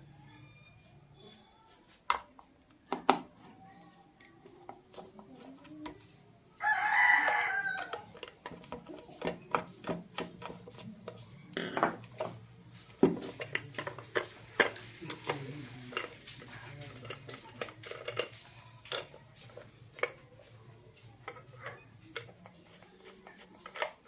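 Scattered sharp clicks and taps throughout. About seven seconds in comes one loud call with a wavering pitch, lasting just over a second.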